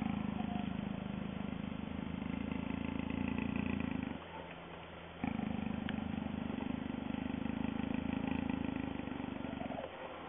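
Jaguar caught in a snare growling: two long, low growls, the second starting after a brief pause about four seconds in.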